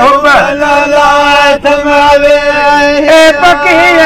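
Men singing together in a chant-like folk song: one low note held steady underneath while another voice bends and ornaments above it, with no breaks.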